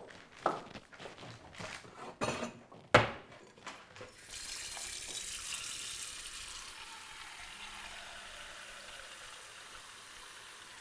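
Crinkling and clicking of a plastic bag being handled, with one sharp click about three seconds in. From about four seconds in, a steady rush of running water starts and slowly fades.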